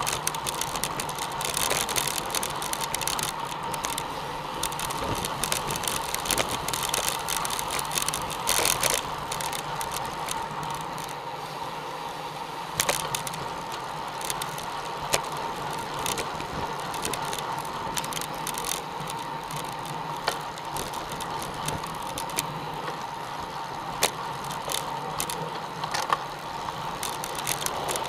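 Road bicycles riding on asphalt, heard from a camera mounted on one of the bikes: a steady rush of tyre and wind noise, gustier in the first nine seconds, with a few sharp clicks from the bikes.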